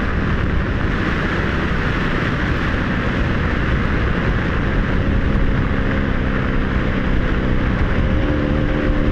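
Steady wind rush on a helmet microphone while a 1985 Honda Magna 700's V4 loses power: its failing fuel pump has stopped delivering fuel. A steady low engine hum comes up over the last few seconds.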